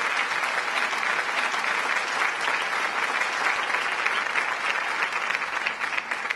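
Theatre audience applauding: many hands clapping together in a dense, steady patter.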